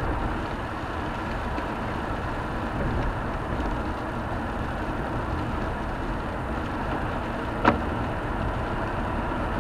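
Steady driving noise heard from inside a car cruising on a country road: tyre and engine noise at an even level. A single sharp click sounds once, near the end.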